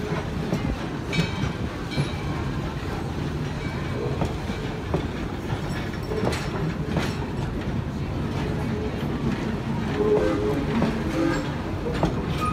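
Railroad passenger coaches rolling past: a steady low rumble with scattered clicks of the wheels over rail joints.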